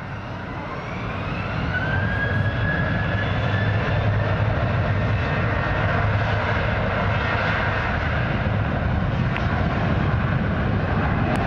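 Airliner's engines, growing louder over the first two seconds and then holding a steady loud roar, with a whine that rises in pitch and levels off.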